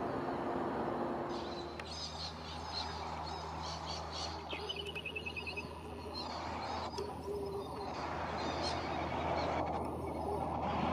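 A freight train rumbles past for the first second and a half. Then birds chirp and call over a steady low hum, with a quick trill of about ten notes near the middle.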